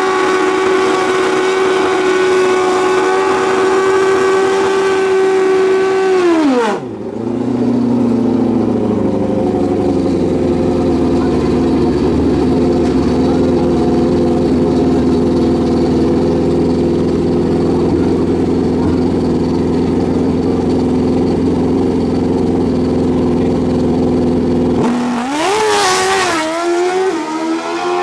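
Drag-racing motorcycle engine held at high, steady revs for about seven seconds, then dropping to a lower, steady speed. Near the end it revs sharply upward through quick gear changes as the bike launches from the line.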